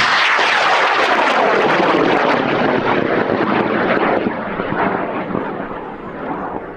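High-power rocket motor firing: a sudden loud, crackling roar that holds for about four seconds, then fades gradually.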